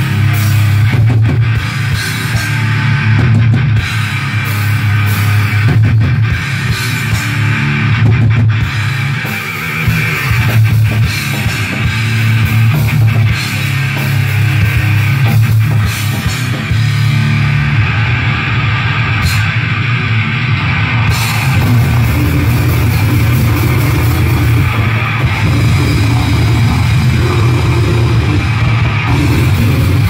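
Live goregrind band playing loudly: electric guitar and drum kit, with the vocalist singing into the microphone.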